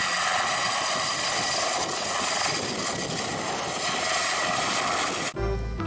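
Military transport helicopter hovering: steady rotor and turbine noise with a thin high whine, cutting off suddenly near the end.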